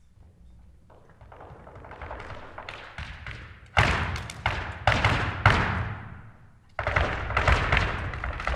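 Flamenco dancer's footwork (zapateado) on the stage floor: a fast roll of stamps that grows louder, then heavy stamps from about halfway in. It breaks off briefly near the end and starts again.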